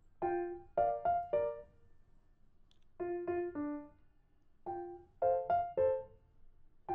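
Background music: a light piano melody played in short groups of three or four notes, with brief pauses between the groups.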